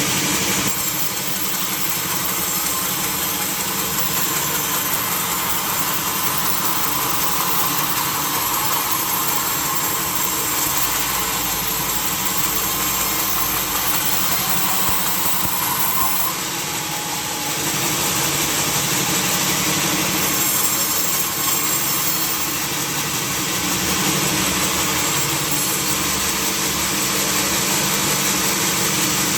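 Sawmill saw machinery running steadily, a continuous mechanical drone with a broad hiss over a low hum. The loudness dips slightly a few times.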